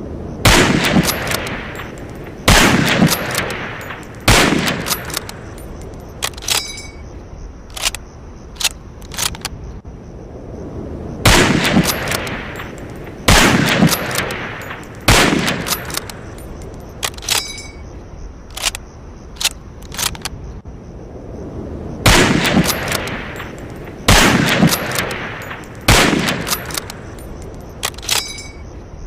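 Lee-Enfield No.4 Mk I bolt-action .303 rifle firing three volleys of three shots, about two seconds apart, each shot ringing out in a long echoing tail. Between the volleys come runs of sharp metallic clicks and a few clinks, some with a short ring.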